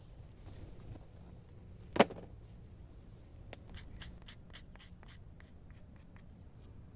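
A single sharp knock about two seconds in, then a run of about a dozen light clicks, roughly four a second, over a low steady background.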